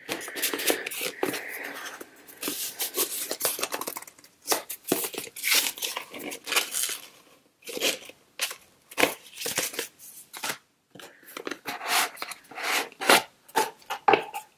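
Paper and cardboard packaging handled by hand: a ribbon-tied orange gift box being untied, slid out of its sleeve and opened, with rustling, scraping and crinkling in irregular bursts.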